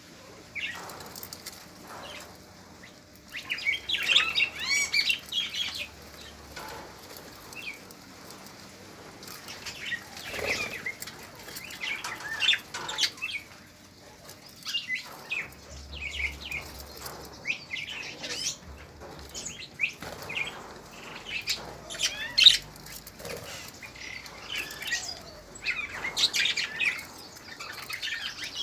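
A flock of budgerigars chattering and chirping in irregular bursts of warbling calls, with wing flutters as birds fly to and from the feeding tray.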